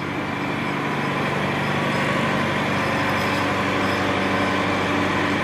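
An engine idling steadily, an even low hum that does not change.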